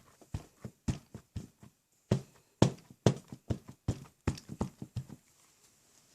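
A rubber stamp on a clear acrylic block being tapped repeatedly onto an ink pad to ink it, about three quick taps a second, stopping about five seconds in.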